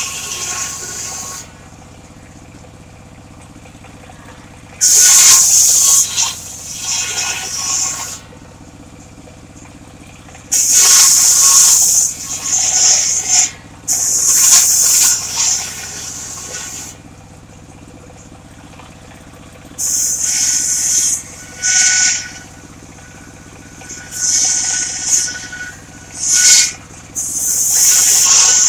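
Engine-driven circular saw cutting mahogany: loud hissing cuts of one to three seconds each, about seven in all, with the saw's engine running steadily in the gaps between them.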